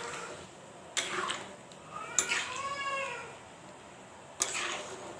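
A ladle or spoon knocks against a cooking pot three times while pea-and-potato curry is being stirred. About two seconds in there is a high-pitched call, about a second long, that rises and then falls in pitch.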